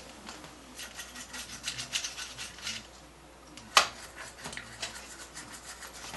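A small brush scrubbing dust off the circuit board of an old Sony clock radio in quick, scratchy back-and-forth strokes. One sharp click a little under four seconds in.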